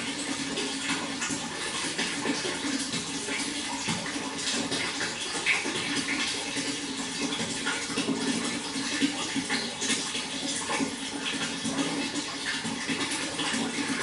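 Water flowing and splashing steadily, a constant gurgling rush with many small splashes.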